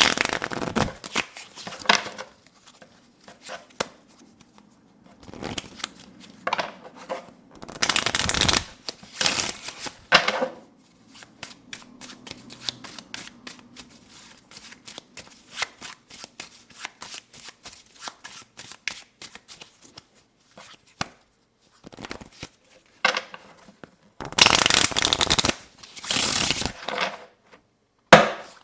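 A deck of playing cards handled close to the microphone: shuffled in dense rattling bursts, one about a third of the way in and a longer one near the end, with scattered taps and flicks of the cards between.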